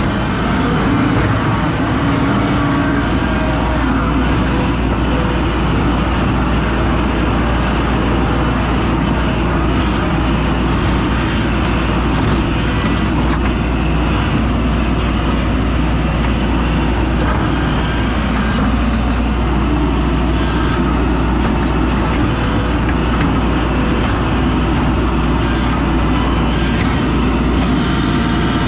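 Skid steer engine running steadily under the operator, with a deep hum and now and then a light clatter.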